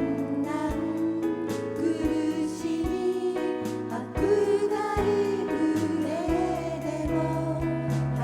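Congregational worship song: voices singing a praise hymn together over instrumental accompaniment with a steady beat.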